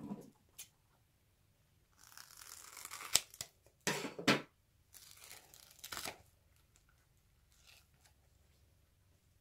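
Spiky rubber skin of a stress ball being peeled off its core of foam-bead slime, crackling and tearing in two stretches of a second or two each, with a couple of sharp snaps.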